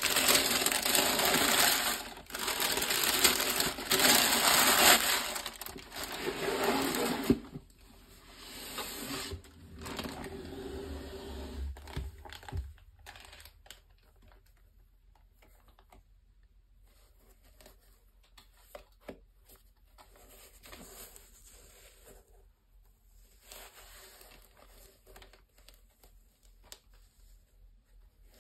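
Thin tissue paper crinkling and rustling as gloved hands fold it back and lift it out of a shoebox, loud for the first seven seconds or so. After that, quieter rustling and a few small taps as a pair of knit basketball sneakers is handled and turned over.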